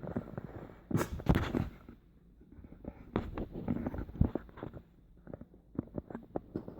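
Small metal clicks, taps and scrapes from a padlock being worked on with hand tools during disassembly. There is a cluster of louder knocks about a second in, then a run of quick light clicks.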